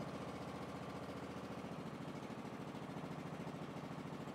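Briggs & Stratton single-cylinder OHV engine on a riding lawn tractor running steadily, with an even pulse, its valves freshly adjusted.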